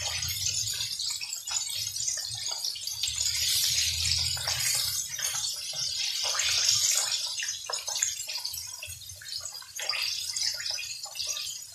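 Parboiled, battered chicken pieces deep-frying in a pan of hot oil, sizzling steadily with many small crackles that swell and fade. A low hum sits beneath the sizzle for the first few seconds.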